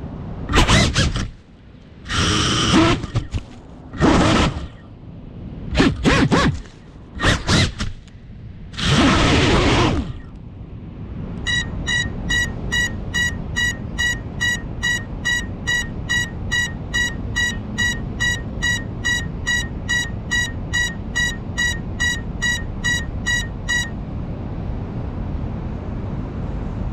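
Crashed FPV quadcopter: several loud, short bursts of motor and propeller noise in the first ten seconds. Then its piezo buzzer beeps evenly, a little over twice a second, for about twelve seconds, the lost-model alarm of a downed drone.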